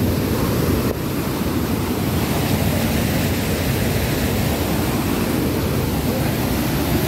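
Mountain stream rushing and cascading over boulders: a steady, loud rush of white water.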